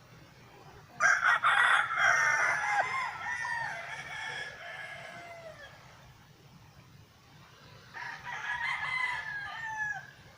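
Rooster crowing: one loud, drawn-out crow about a second in that trails off with a falling pitch, then a second, fainter crow near the end.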